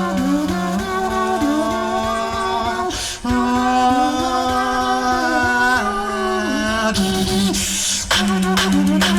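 Tag-team beatboxing by two performers: long held hummed bass notes under a higher vocal line that slides up and down, with a short break about three seconds in. Sharp percussive clicks and snare-like hits come in near the end.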